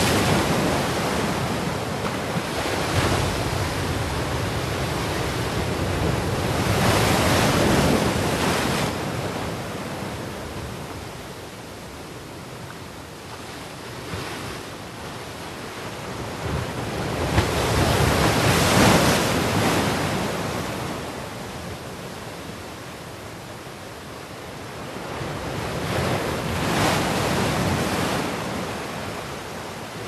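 Heavy storm surf on the Black Sea: big waves breaking and washing up the shore in a continuous rush, swelling loud about every eight to ten seconds as each breaker crashes.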